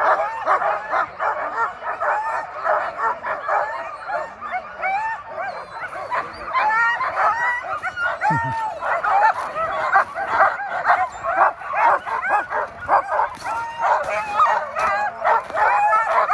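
A team of sled dogs barking, yipping and whining in a dense, unbroken chorus of many overlapping voices: the excited din of harnessed dogs straining to run at a race start.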